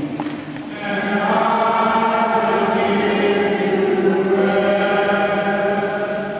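A congregation singing a hymn at Mass, many voices together on long held notes. A short breath comes just under a second in, then one long phrase begins to fade at the end.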